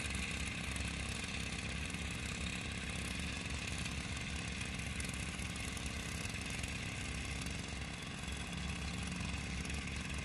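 Engine-type crop sprayer's small engine running steadily and faintly, from afar across the field.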